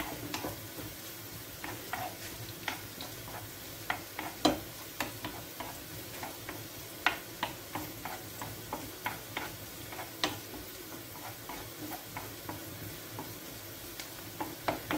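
Wooden spoon stirring chopped onion in a frying pan, with irregular light knocks and scrapes of the spoon against the pan over a steady low sizzle of the onion frying in oil.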